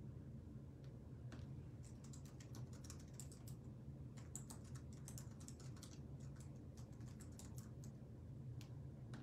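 Faint typing on a computer keyboard: a run of quick, uneven keystrokes starting about a second and a half in and stopping near the end, over a low steady hum.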